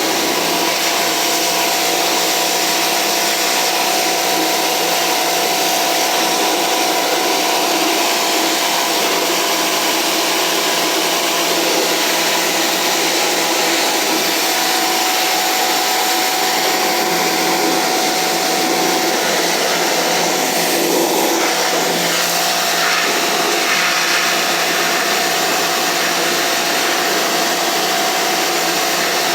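Pressure washer running steadily, its water jet spraying down chicken perches.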